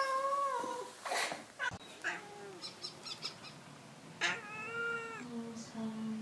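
Domestic cats meowing: a falling meow at the start, another about four seconds in, then a low, drawn-out cry near the end.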